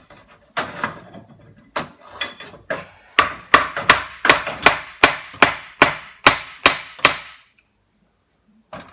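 Hammer blows on a stuck part of a 17.5 hp Briggs & Stratton engine, knocking it loose: a few spaced strikes, then about a dozen quick blows at roughly three a second, stopping about seven and a half seconds in.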